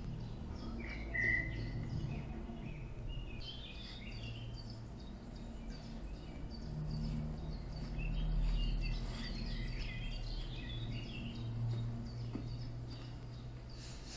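Small birds chirping and calling, with many short notes and one brief whistled note just over a second in, over a steady low hum.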